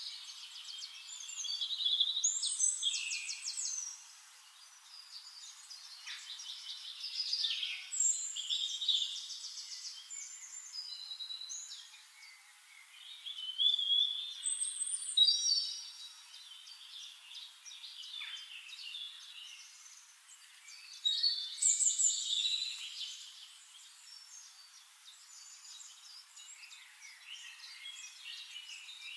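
Several birds singing and calling: overlapping chirps, rapid trills and short whistled phrases that come in louder bursts every few seconds.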